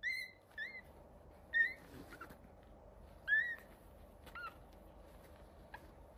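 Newborn schnauzer puppies giving short, high squeaks, each bending up and then down in pitch. There are about five in the first four and a half seconds, then only a faint one or two.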